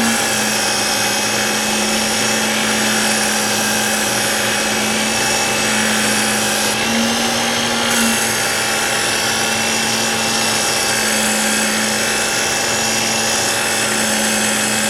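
Work Sharp Ken Onion Edition electric belt knife sharpener running steadily, with a blade edge being ground on its X22 abrasive belt: a steady motor hum with a high grinding hiss.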